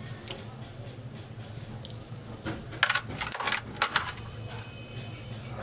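Small steel hydraulic pump parts (pistons and springs) clinking against each other and the metal tray as they are handled, with a cluster of sharp clinks about three seconds in and another near four seconds.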